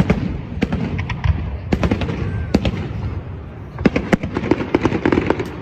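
Fireworks going off in an irregular series of sharp bangs and crackles, coming thickest near the end.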